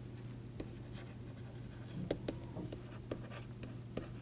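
Stylus writing by hand on a tablet: light scratches and small taps as the pen tip strokes across the surface, over a faint steady low hum.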